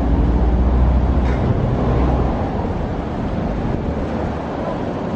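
Mercedes-Benz G550's V8 engine running at low revs as the SUV crawls down a steep ramp; the low engine tone eases off about halfway through.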